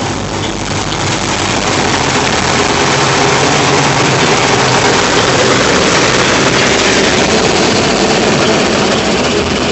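Automatic car wash heard from inside the car: water jets spraying on the windshield and body, then cloth wash strips sweeping across the glass. It is a loud, dense, steady rush that builds over the first couple of seconds, with a low steady hum underneath.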